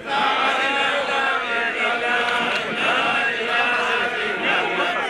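A large crowd of many voices chanting together.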